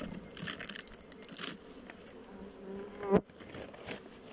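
Honeybees humming over the open top of a hive, with the rustle of the cloth cover being pulled off in the first second or so. About three seconds in, a loud buzz close by rises in pitch and is cut off by a sharp knock.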